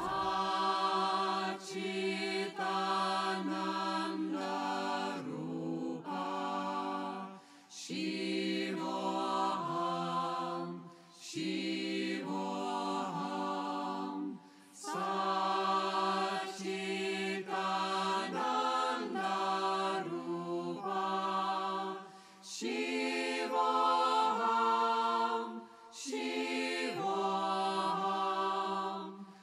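Voices singing a chant together as music, in held phrases a few seconds long with short breaks between them.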